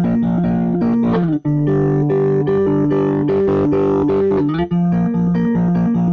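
Electric guitar playing a repeating riff of quickly picked notes, shifting up to a new chord about a second in and back down about four and a half seconds in.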